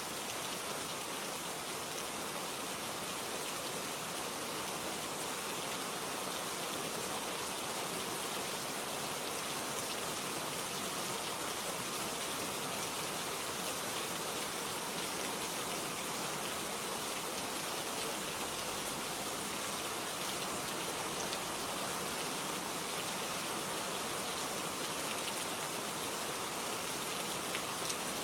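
Steady rain falling, a constant even hiss with scattered small drop ticks.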